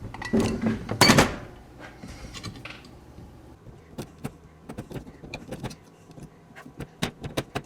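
Old dried gasket being scraped off the metal mating surface of a Holley four-barrel carburetor: a couple of loud scrapes in the first second and a half, then many light clicks and ticks of the scraper on metal.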